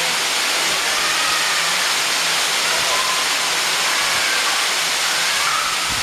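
Waterfall on the Jilabun Stream: water pouring down in a steady, unbroken rush.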